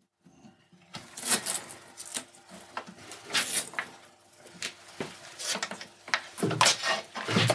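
Hands working a cable and its black corrugated plastic conduit loose from a wooden frame: irregular rustling, clicks and light knocks, starting about a second in.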